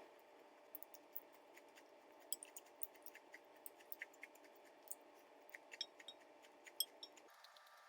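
Faint, scattered small clicks of someone eating: soft chewing and mouth sounds, over a low steady background hum.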